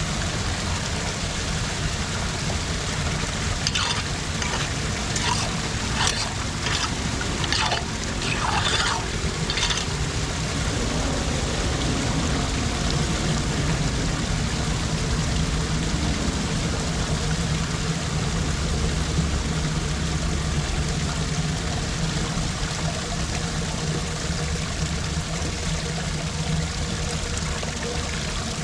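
Floodwater pouring steadily into a street storm drain, with a cluster of short knocks and clicks about four to nine seconds in.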